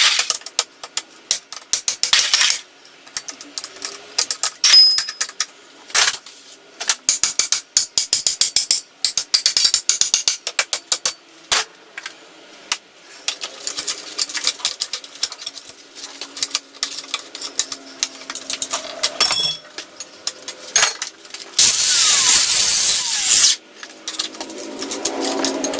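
Steel tools clinking, scraping and prying against the broken cage and loose rollers of a large roller bearing on a shaft, a dense run of sharp metallic clicks and rattles. Near the end comes a louder harsh rush of noise lasting about two seconds.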